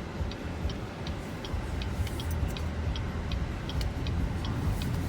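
Car turn signal ticking evenly, about three clicks a second, over the low rumble of the car driving, heard inside the cabin.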